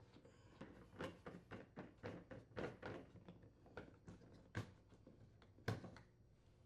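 Faint handling noises of the old rubber pump connector on a GE dishwasher being twisted and unthreaded from the wash arm support: a run of soft rubs and clicks, with two sharper knocks in the second half.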